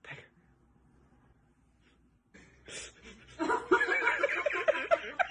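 A person laughing in quick, repeated bursts, starting a little past halfway through after a near-quiet start.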